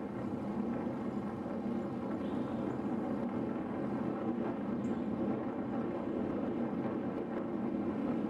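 Steady wind and road noise on the microphone of a camera riding on a moving road bike.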